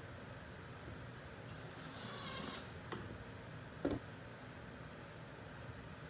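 Woodworking shop sounds: a short hiss about one and a half seconds in, then a single sharp knock about four seconds in.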